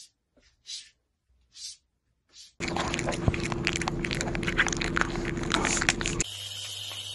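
Cat's claws scratching a wooden door in short strokes, about one a second. About two and a half seconds in, it switches to a loud close-up crackle full of clicks as a kitten licks and bites a lemon slice. Near the end this gives way to a steady hum.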